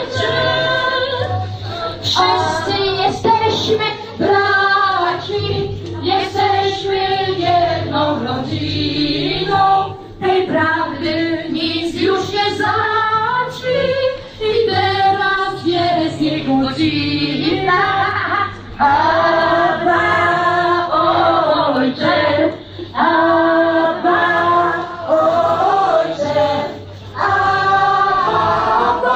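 A choir singing a song, female voices prominent, over a steady low accompaniment.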